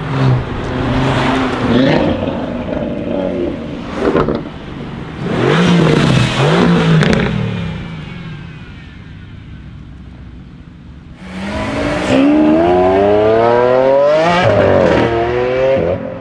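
Mercedes-AMG GT R twin-turbo V8 revving in several short bursts, with a sharp crack about four seconds in. After a fade, a hard acceleration follows, the engine note climbing steadily, with a brief drop at an upshift near the end.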